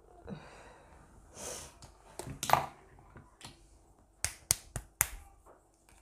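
Small makeup items being handled: soft rustling, then sharp clicks, the loudest about two and a half seconds in, and four quick clicks in a row about four seconds in.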